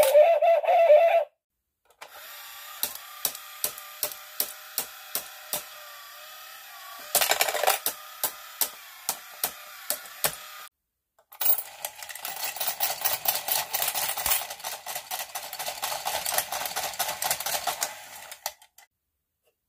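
Battery-powered novelty coin banks at work. It opens with the last second of an electronic jingle from a toy dog-house bank. A small motor then hums with about two or three sharp clicks a second from a football coin bank's mechanism, with one loud clatter partway through. Near the middle a denser whirring and clicking from a coin-eating dog bank's mechanism starts and runs for about seven seconds.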